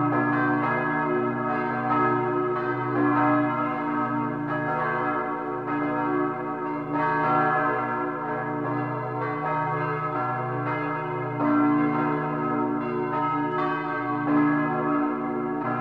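Church bells ringing, several bells struck one after another so that their ringing tones overlap in a continuous peal.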